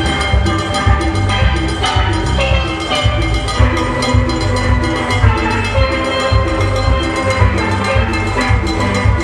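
Loud Caribbean steelpan music: ringing pan notes over a heavy, steady bass and drum beat.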